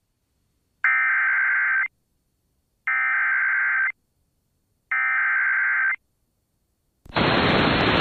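Emergency Alert System SAME header: three bursts of buzzy digital data tones, each about a second long with about a second's silence between them, signalling the start of an emergency alert. About seven seconds in, a loud hiss of static starts.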